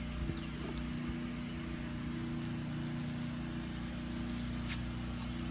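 Steady low hum of a running motor, with one faint click near the end.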